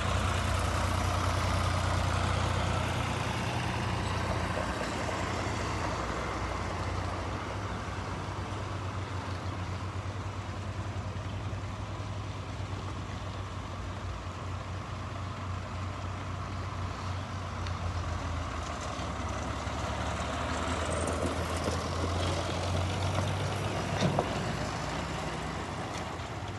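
Diesel farm tractor engines running as loaded tractors pull trailers of round hay bales past. The low engine hum is loudest at first, fades in the middle and swells again as another tractor and its trailer pass close, with a single sharp knock about 24 seconds in.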